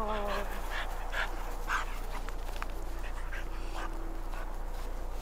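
French bulldog puppy giving a short whine at the start, then a few short, sharp sounds as it plays.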